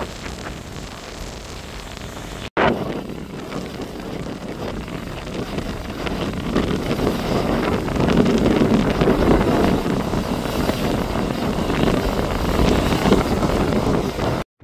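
Hurricane-driven surf breaking on the shore and surging against a wooden seawall, with strong wind buffeting the microphone. A brief dropout comes about two and a half seconds in, and after it the surf and wind are louder.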